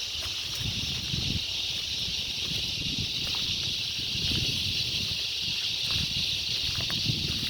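Bush ambience: a steady high-pitched insect chorus, with a low, uneven rumble underneath.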